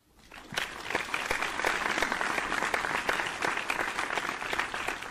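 Crowd applause: many hands clapping together, swelling in over the first second, holding steady, then starting to fade near the end.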